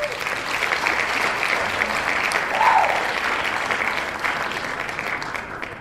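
Crowd applause, a dense patter of many hands clapping, starting abruptly, swelling to its loudest about halfway through and slowly fading toward the end.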